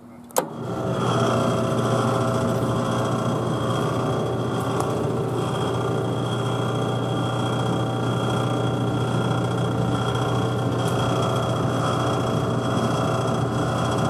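Federal Signal Thunderbolt siren with its blower, rotation and chopper motors running: a switch clicks about half a second in, then a loud, steady mechanical drone with a low hum and no rising wail. It shuts off near the end.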